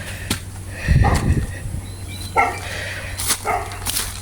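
A dog barking a few short times in the second half, with a brief low rumble about a second in.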